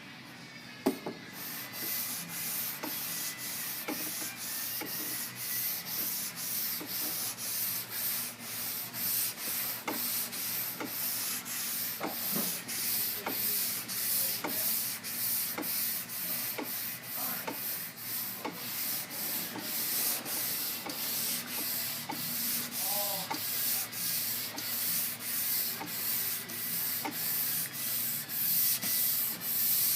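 Sandpaper on a Curvecaster flexible sanding board being pushed back and forth by hand across a primed car body panel, rasping in steady strokes about two a second. There is a single knock about a second in, as the sanding starts.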